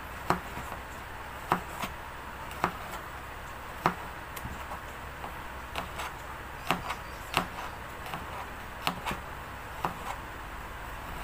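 Kitchen knife slicing a garlic clove on a cutting board: about a dozen short knife taps on the board, slow and irregular, roughly one a second.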